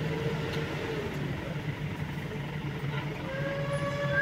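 A steady low engine hum. About three seconds in, a long steady horn-like tone with overtones begins.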